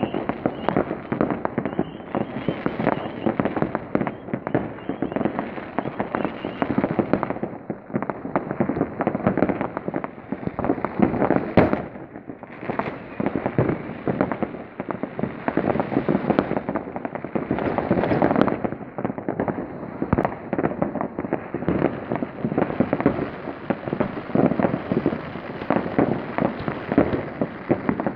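Many fireworks and firecrackers going off at once at different spots, a dense, unbroken crackle of bangs and pops. One sharper, louder bang stands out about twelve seconds in.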